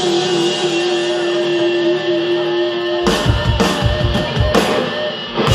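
A live heavy metal band holds a sustained distorted guitar chord. About three seconds in, the drums and cymbals come in with a run of heavy hits, as in the closing flourish of the song.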